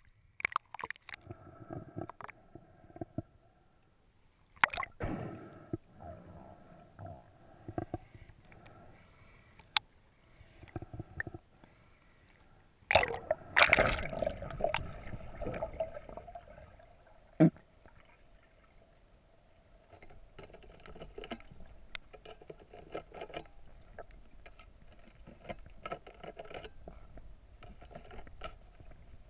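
Water sloshing and splashing around a GoPro camera as it goes from the surface to underwater, in irregular bursts with scattered sharp clicks; loudest about thirteen to fifteen seconds in.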